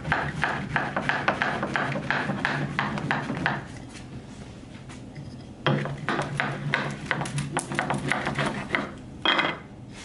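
Small wooden block rubbing and knocking rapidly back and forth over a braided deer-hide whip lash on a wooden tabletop, several strokes a second. This is the rolling stage that smooths bumps out of the braid. The strokes stop about three and a half seconds in and start again about two seconds later.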